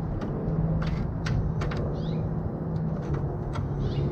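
Scattered light metallic clicks and taps as a Knipex pliers wrench grips and squeezes the bent sheet-steel edge of a tool chest. A steady low hum runs underneath, and a few short bird chirps come through.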